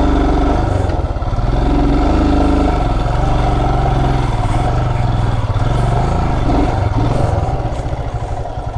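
Motorcycle engine running at idle with a pulsing beat, its revs rising and falling slightly.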